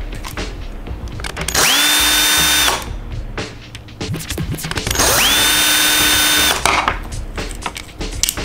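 Small electric screwdriver running in two bursts, each spinning up quickly to a steady high whine for one to one and a half seconds, backing screws out of a nano drone's plastic shell. Light clicks and knocks of handling come between the bursts.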